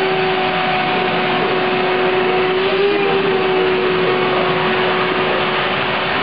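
A machine's motor running steadily: a constant hum over a loud rushing noise, its pitch sagging slightly about three seconds in.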